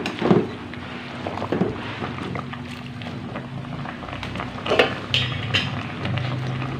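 A pot of cassava leaves boiling on a gas stove gives a steady hiss. A few knocks from a utensil against the aluminium pot come near the start and again at about one and a half and about five seconds in.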